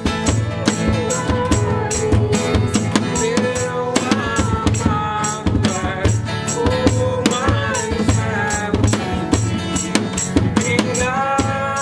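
Instrumental break in a gospel worship song: a drum kit keeps a steady beat while a melodic lead line slides and bends over sustained chords.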